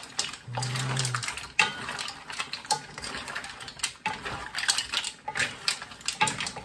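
Wooden spatula stirring mussels in their shells in a wok: an irregular run of clacks and clicks as shells knock against each other and the pan.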